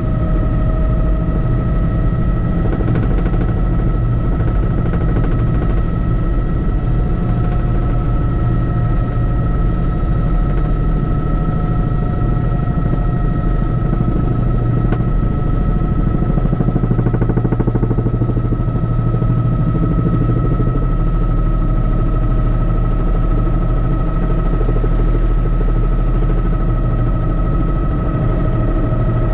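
Helicopter in flight: the steady beat of the rotor over engine noise, with a constant high turbine whine.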